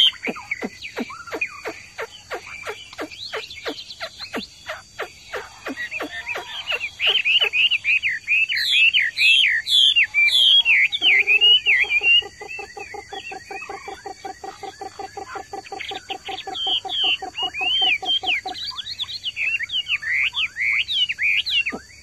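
Caged Chinese hwamei (melodious laughingthrush) singing loud, varied whistled phrases that sweep up and down, in bursts through the middle and again near the end. A second call runs alongside: a quick series of short dropping notes in the first third, then a steady, fast train of low notes for several seconds in the middle.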